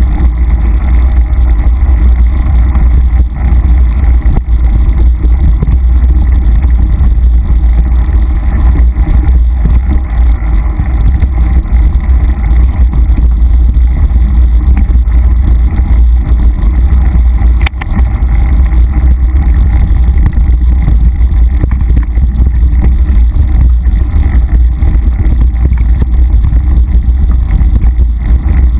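Mountain bike riding fast down a dirt singletrack, heard through a camera mounted on the bike: a constant loud, deep rumble of tyres on the trail, the bike's rattle and wind on the microphone. One sharp knock about two-thirds of the way through.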